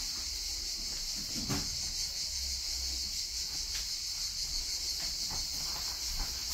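Steady, high-pitched insect buzzing, such as a summer cicada chorus, over a low rumble, with a few faint knocks.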